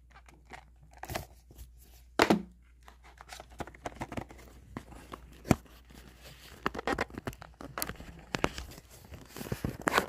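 Phone case packaging being opened by hand: irregular tearing and crinkling with sharp clicks and knocks, the loudest about two seconds in and again about five and a half seconds in.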